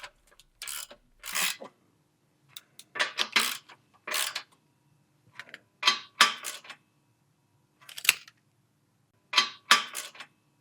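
Irregular metallic clinks and rattles of hand tools working on an exhaust coupler clamp, a dozen or so short sharp sounds in uneven bunches.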